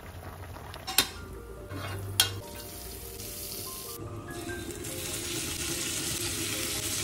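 Butter, garlic and shrimp sizzling in a non-stick frying pan as they are stirred, the sizzle growing louder in the second half. Two sharp knocks come about a second apart near the start.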